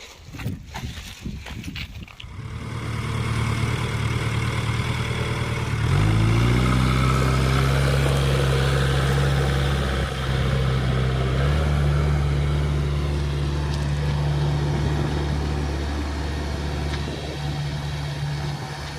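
JCB 3DX backhoe loader's diesel engine running. After a few knocks in the first two seconds, the engine grows louder, its pitch climbs quickly about six seconds in as it revs up, and it holds at the higher speed, rising a little again about halfway through.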